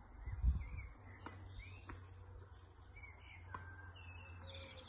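Wild birds chirping and singing throughout, with three sharp taps of a tennis ball struck on racket strings during a short volley exchange. A brief low rumble about half a second in is the loudest moment.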